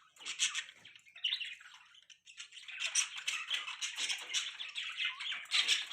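Budgerigars chirping and chattering in quick, high-pitched bursts, with a short lull about two seconds in before the chatter picks up and runs on busily.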